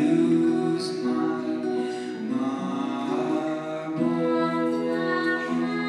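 Live band music between sung lines: long held chords of several sustained notes, shifting every second or so.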